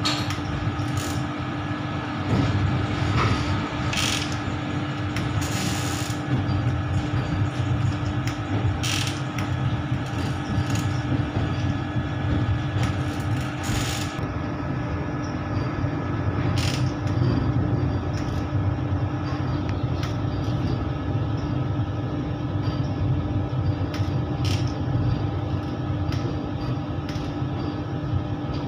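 A Vande Bharat electric train set running, heard from inside its driving cab. A steady hum and whine of several tones sits over a low rumble, with a sharp click or knock every few seconds.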